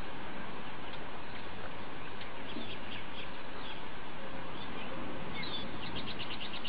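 Small birds chirping over a steady outdoor hiss, with a quick trill of rapid repeated notes near the end.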